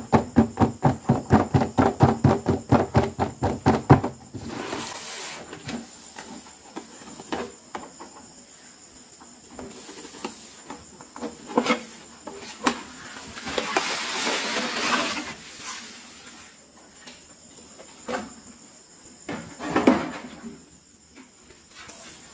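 Cardboard toy box and its plastic-and-card insert being handled and opened: scratchy rustling, crinkling and light knocks, loudest in a rustling stretch partway through. It opens with a quick, even tapping, about four or five strikes a second, that stops abruptly about four seconds in.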